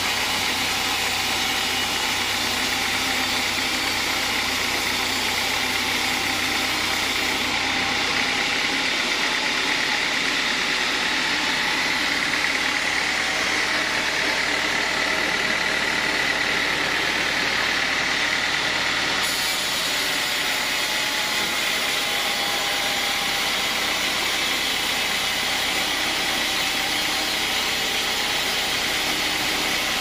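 Sawmill band saw running with its blade cutting lengthwise through a teak log: a steady machine drone and cutting noise, with a higher whine that grows stronger in the middle and eases about two-thirds of the way through.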